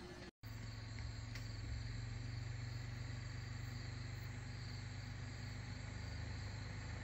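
Night insects, crickets among them, trilling steadily in a high chorus over a steady low hum. The sound breaks off for a moment about half a second in, then carries on evenly.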